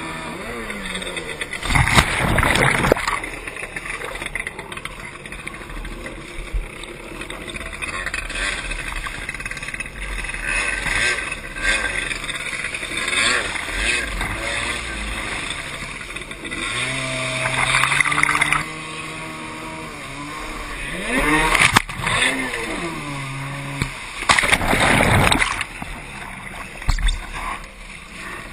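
Kawasaki JS550 stand-up jet ski's two-stroke engine revving up and down several times as its rebuilt motor is run in, over a steady rush of water. Several loud splashes come as the ski tips and the rider goes into the water.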